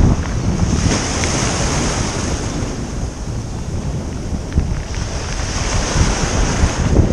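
Wind buffeting the microphone over surf washing onto a pebble beach.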